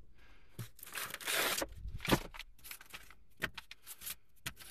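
Papers and booklets rustling and sliding as a stack of manuals and receipts is pulled from a car's glove box and leafed through. A long rustle about a second in, then a sharp knock shortly after, with scattered smaller rustles and clicks.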